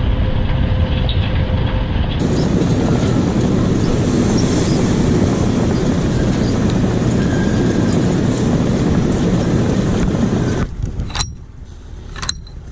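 Heavy vehicle running, a loud steady rumble and rattle that drops away sharply about eleven seconds in, followed by a few sharp clicks.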